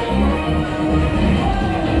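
Background music with a beat.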